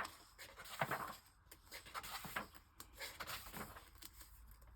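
Faint rustling and light handling of paper, with a few soft ticks scattered through.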